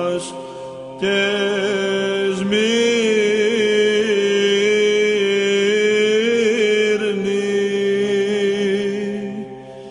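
Greek Orthodox Byzantine chant: a sung melody over a steady held low note. The melody moves in long, ornamented phrases, with short breath pauses at the start and near the end.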